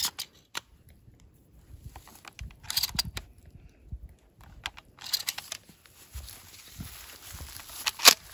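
Sharp metallic clicks and handling rustle as 12-gauge 1.75-inch mini shells are pushed into a Mossberg Shockwave pump shotgun's tube magazine, with the loudest clicks near the end.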